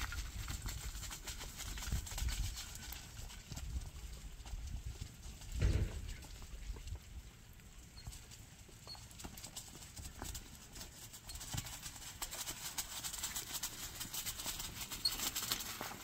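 Stone roof roller dragged over a packed-earth roof to compact it: a low, uneven rolling rumble with grit crunching under it, with one heavier thump about six seconds in and lighter crackling near the end.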